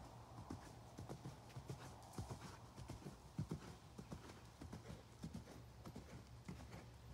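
Hoofbeats of an Irish Sport Horse × KWPN gelding trotting and cantering on a sand arena surface: faint, soft, irregular thuds.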